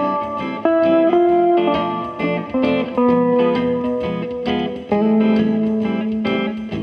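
Höfner Wandergitarre fitted with a single-coil pickup, played amplified: a melody of held single notes, changing every second or so, over a quick, evenly repeating accompaniment.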